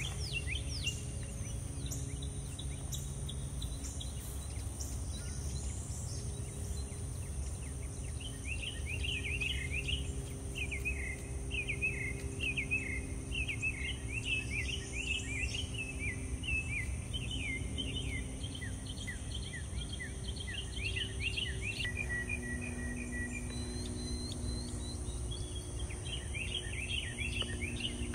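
Outdoor garden ambience: a steady high insect drone with a bird chirping in quick runs of short, falling notes, starting about a third of the way in, pausing, and returning near the end. Underneath are a faint steady hum and a low rumble.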